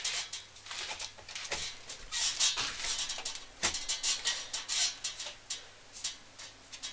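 Irregular clicks, taps and scrapes of hard plastic and metal computer parts being handled as a graphics card is fitted into a PC.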